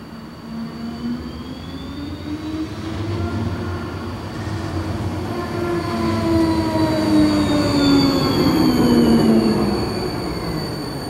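Bombardier low-floor tram approaching and running past. Its electric traction drive whines in several tones that rise over the first few seconds and then fall away, over the rumble of the wheels on the rails. It is loudest a couple of seconds before the end.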